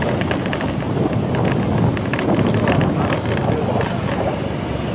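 Intercity bus with a growling exhaust running along the road: a steady low engine and exhaust rumble, with wind noise on the microphone.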